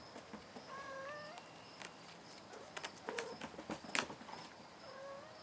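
Cat mewing, two short rising calls, one about a second in and one near the end, with a few sharp taps in between, the loudest about four seconds in.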